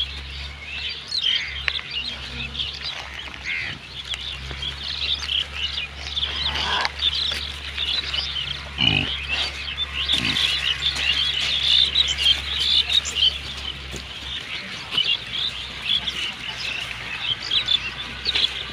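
A dense chorus of small birds chirping continuously, with a few short pig grunts that slide down in pitch around the middle. A steady low hum underneath stops about three-quarters of the way through.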